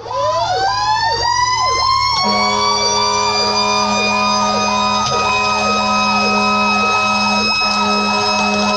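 Fire engine sirens: a mechanical siren winds up and settles into a steady high wail, while an electronic siren sweeps quickly up and down beneath it. A low, steady horn tone joins about two seconds in and drops out briefly a couple of times.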